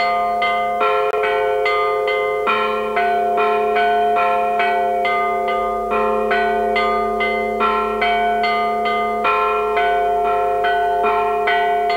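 Several large church bells of different pitches are rung by one ringer pulling ropes tied to their clappers, in the Orthodox manner. The result is a fast, steady peal of about three strikes a second, with the bell tones ringing on and overlapping.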